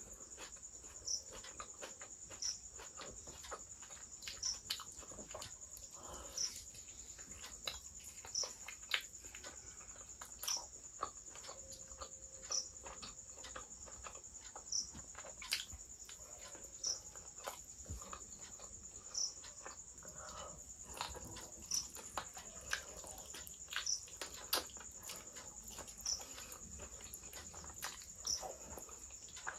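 Close-miked eating sounds: wet chewing, lip smacks and small mouth clicks in an irregular stream, as curried mutton and a chicken leg are eaten by hand. A faint steady high whine runs underneath.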